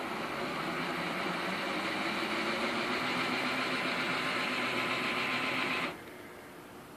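Aristo-Craft large-scale model diesel locomotive's electric motors and gearing running in reverse under radio control: a steady whirr that grows slightly louder, then cuts off suddenly about six seconds in as the throttle is shut.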